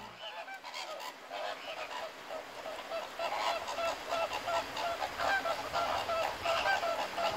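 A flock of birds giving many short, overlapping calls, growing denser and louder from about three seconds in.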